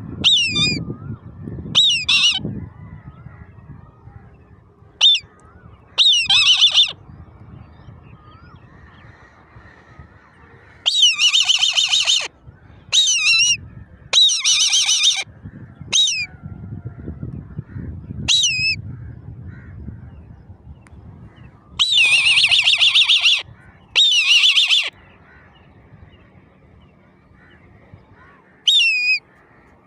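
Older eaglets calling: a string of about a dozen shrill, high-pitched cries with pauses between, some short and bending in pitch, others held for about a second. A low rumble runs underneath.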